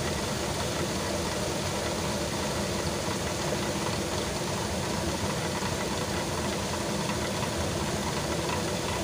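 Stone flour mill running: the upper millstone turning on the lower stone as grain trickles in from the hopper, a steady rough grinding rumble that stays even throughout.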